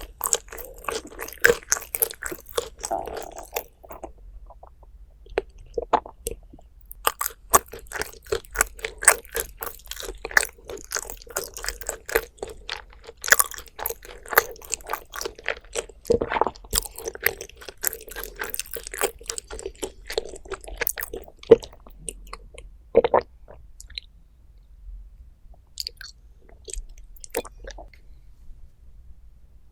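Close-miked eating sounds: crisp crunching and chewing of food, dense at first and thinning to a few scattered crunches in the last third.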